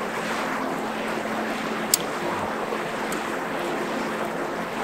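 Steady rushing outdoor noise with a campfire burning, one sharp crack from the fire about two seconds in and a fainter one about a second later.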